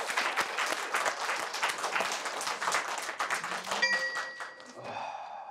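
Several people applauding, the clapping thinning out after about four seconds. As it fades, a short electronic chime sound effect rings for about a second.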